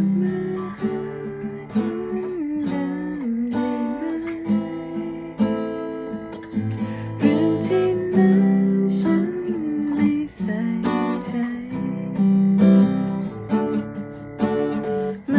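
Instrumental guitar intro: strummed chords with sharp strokes under a sustained, moving melody line.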